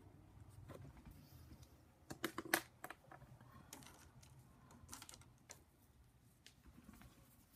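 Light clicks and taps from a pencil being handled and set down on a desk, with a quick cluster of sharper clicks about two seconds in and a few scattered ones after.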